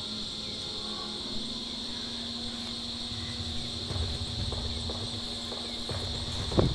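Steady, high insect chorus of trilling crickets in forest, with soft rustling and low knocks from about four seconds in and a sharper knock near the end.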